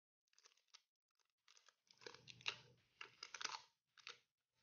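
Clear plastic wrapping crinkling and tearing as it is pulled off a new phone battery, in a run of irregular crackles, loudest in the middle.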